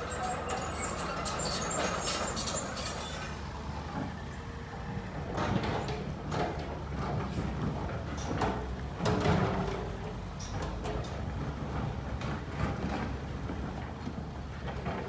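Excavator diesel engine running steadily, with gritty scraping early on giving way to several sharp knocks of stones, the loudest about nine seconds in.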